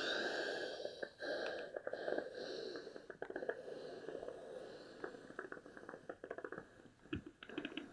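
Steam iron pressing a folded cotton hem on an ironing board: a steady hiss and rustle that slowly fades, with light clicks and taps from the fabric being handled, more of them near the end.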